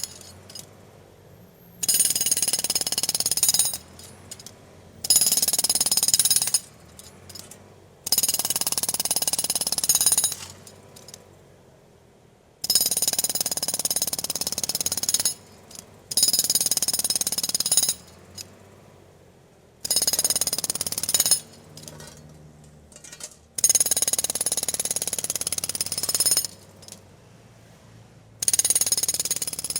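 Pneumatic drill hammering in repeated bursts of about two to three seconds, with short pauses and faint clinks between them, as in drilling rock at a mine.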